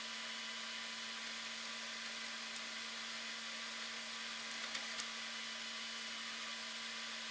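Steady electronic hiss with a low, even hum and no sound from the scene itself: the noise floor of a recording made without audio. Two faint ticks about five seconds in.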